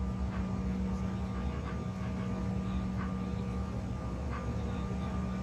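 Steady cabin drone inside a Bombardier CRJ1000 jet on the ground, a low hum with a constant tone, broken now and then by a faint light click.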